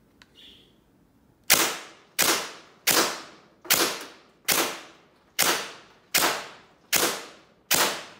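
Gel blaster DSG firing on semi-auto, nine single sharp shots about 0.8 s apart, each fading quickly. The shots are going through a chronograph to measure their velocity.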